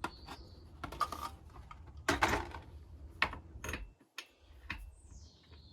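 Scattered clicks, taps and knocks of a small engine compression tester being handled and readied for fitting to the chainsaw, with a brief rustle about two seconds in.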